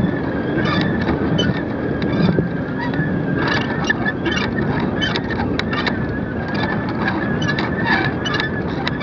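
Wind noise on a camera hanging from a kite line, with a steady wavering whistle and irregular clicks and rattles that come thickest a few seconds in.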